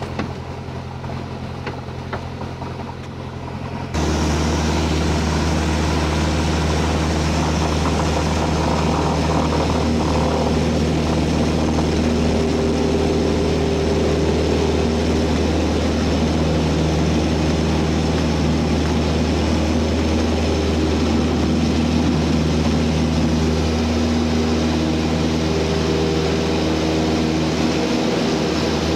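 Cessna 172M's four-cylinder Lycoming piston engine and propeller running, heard from inside the cabin while the aircraft rolls on a grass airfield. The drone steps up abruptly about four seconds in, then holds steady and loud.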